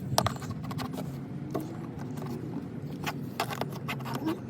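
Irregular small clicks and scrapes of the plastic and metal parts of a car's interior door handle and door panel being worked by hand, over a low steady hum.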